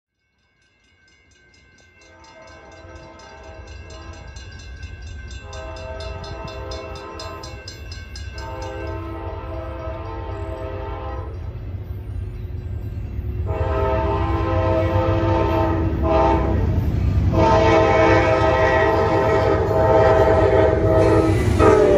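Amtrak GE P42 diesel locomotive's air horn sounding as the train approaches, growing louder. It gives a series of long blasts, then after a pause a long, a short and a final long blast, over a low rumble of the oncoming train. A bell rings rapidly through the first half.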